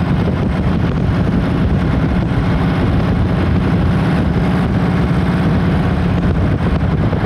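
1939 Harley-Davidson Model EL Knucklehead's 61 cubic inch overhead-valve V-twin running steadily while the bike rides along at low speed.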